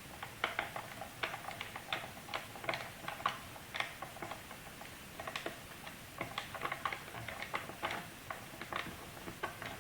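Small screwdriver backing a screw out of a laptop's bottom case: a run of light, irregular clicks and ticks as the screw turns and the driver tip shifts in its head.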